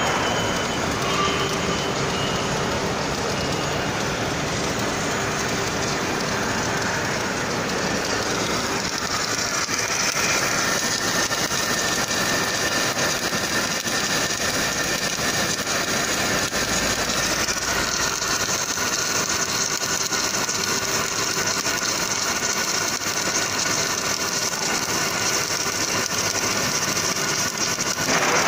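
Welding arc of an automatic longitudinal seam welding machine burning steadily as the torch travels along a seam, a continuous noisy hiss that grows a little brighter about 9 seconds in and again near 17 seconds.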